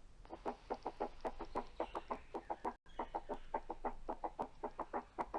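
Recorded heart sounds played back as a fast, even run of dull beats, about six or seven a second, cutting out for a moment about halfway through. The triple-sound cadence is a gallop rhythm, an extra heart sound added to the first and second.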